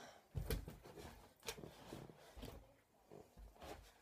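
Several soft, separate thumps and knocks of someone moving about and handling things, with low thuds about half a second in and again near the end, and lighter clicks in between.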